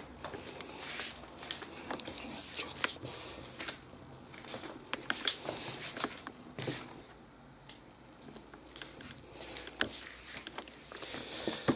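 Quiet room with faint scattered clicks and a few brief rustles, as of small objects being handled.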